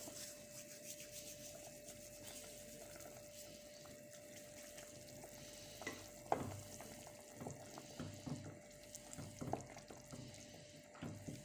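Faint sizzle-like hiss from a cooking pot, with a few soft knocks and rustles from about six seconds in as dried thyme is crumbled into it by hand.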